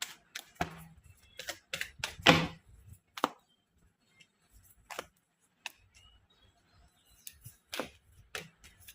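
Tarot cards being handled: an irregular run of sharp clicks and slaps as cards are shuffled, drawn and laid down on a table.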